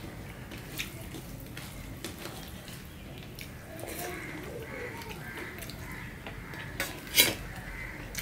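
Eating rice and vegetable curry by hand from a steel plate: soft wet mixing and squelching with small clicks of fingers and food against the metal plate, and one sharper, louder clink about seven seconds in.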